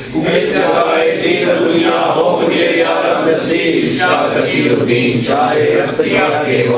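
Male voices chanting a Sufi devotional supplication in phrases, with short breaks between them.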